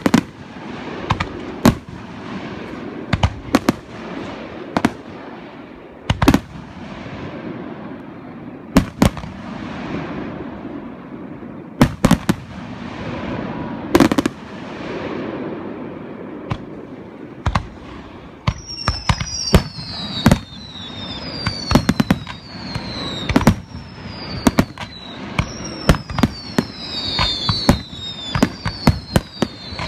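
Aerial firework shells bursting in quick succession, sharp bangs over a continuous crackle and rumble. About two thirds of the way through, falling whistles join the bangs, roughly one a second.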